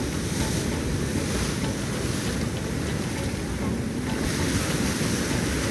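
Sea surf washing on a beach, with wind buffeting the microphone as a steady low rumble.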